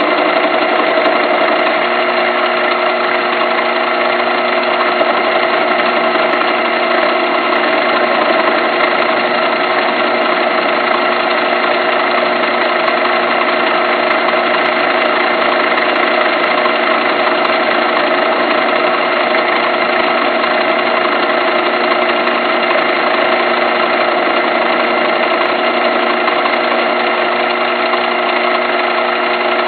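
Metal lathe running steadily while turning a deer-antler blank: a constant machine hum made of several steady tones that does not change in pitch or level.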